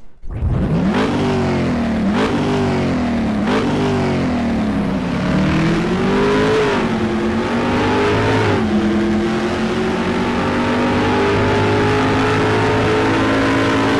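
Car engine revving sharply three times, then climbing and falling more slowly, then running steadily at a constant pitch.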